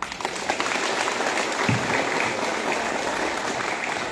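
Audience applauding: many hands clapping in a dense, even patter that starts suddenly and eases off slightly near the end.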